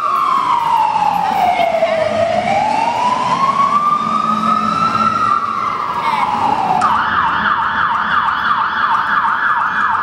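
Emergency-vehicle siren sound effect: a slow wail falling and rising in pitch, switching about seven seconds in to a fast yelp of about three sweeps a second.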